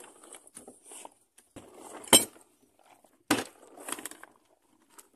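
Plastic tarpaulin rustling and crackling as it is pulled back off a plywood boat hull, with two sharp knocks about two seconds in and again a second later.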